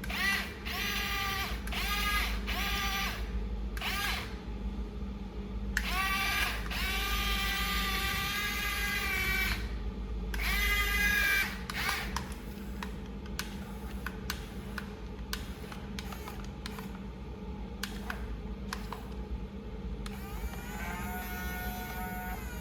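Small electric gear motors of an RC toy excavator whirring in a series of short runs, mostly brief, with two longer runs of a few seconds, as its functions are worked. Between runs there are scattered light clicks over a steady low hum, and one more whir starts near the end.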